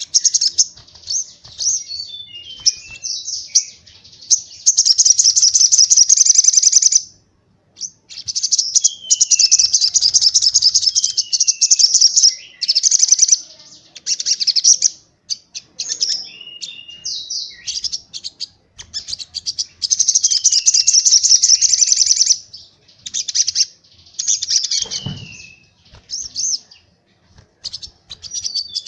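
White-eye (pleci) singing. Long, rapid, high-pitched trills come in bursts of two to three seconds, the fast 'tembakan' runs that keepers train pleci to copy. Between them are short chirps and falling whistles.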